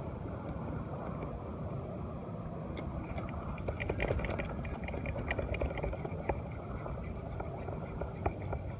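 Steady low rumble of wind and sea water, with faint irregular clicking from about three seconds in as an ultralight spinning reel is wound in.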